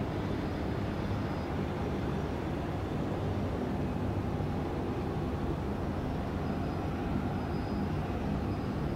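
Steady low rumble of an airport apron, with aircraft and ground-service machinery running, and a faint high whine that comes and goes.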